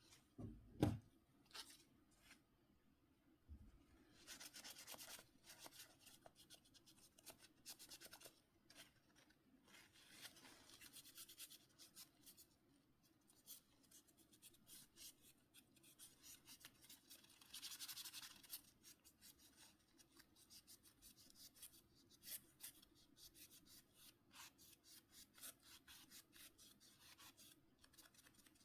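Faint rubbing and scratching strokes and light clicks as a mobile phone's small parts are worked on by hand, with a couple of sharper clicks near the start.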